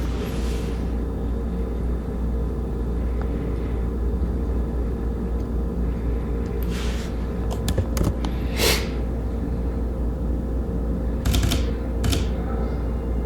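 Steady low hum with a faint steady tone above it, broken by a few short swishes and clicks, about seven, nine, eleven and twelve seconds in.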